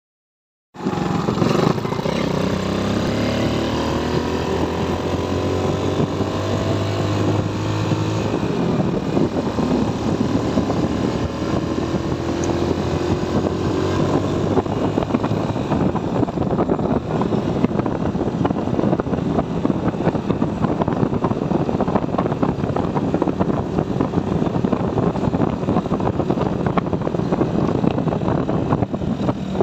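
Motor scooter engine starting to be heard about a second in, rising in pitch as it accelerates, then running steadily at riding speed while a rushing noise of wind and road takes over.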